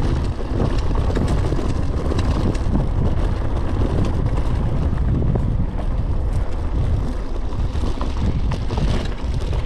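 Mountain bike rolling fast down a dry dirt trail: steady wind buffeting on the microphone over the tyres running on dirt, with scattered small clicks and rattles from the bike over bumps.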